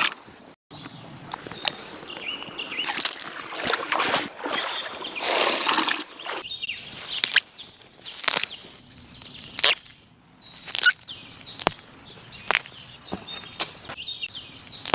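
River water sloshing and splashing in several swells, then a series of sharp, irregular clicks and knocks, with birds chirping in the background.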